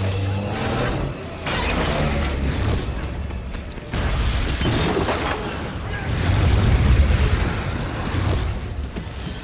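Action-film sound mix: a heavy low rumble, then a sudden explosion about four seconds in that swells and stays loud for a few seconds, layered with music.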